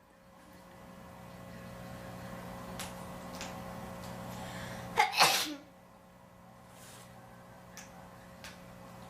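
A person sneezing once, about five seconds in, after a quieter build-up of a few seconds. The sneeze has a sharp short catch followed at once by the louder blast, and it is an induced sneeze. A steady low hum runs underneath.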